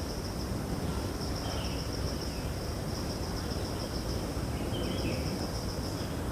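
An insect, cricket-like, trilling steadily in a high, even pulse, with a couple of short bird chirps. A steady low background noise lies underneath.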